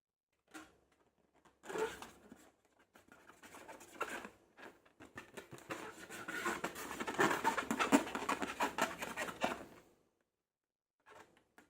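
Sticky slime being squished and stirred by hand, a dense run of fine wet crackles and clicks. It starts in short spurts and becomes nearly continuous from about three seconds in until near the end.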